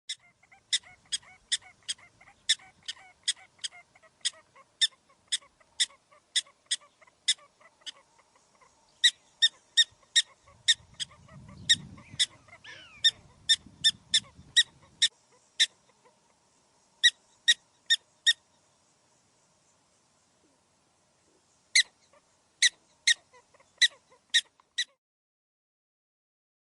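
A bird giving short, sharp, high calls, about two a second, in several runs separated by pauses.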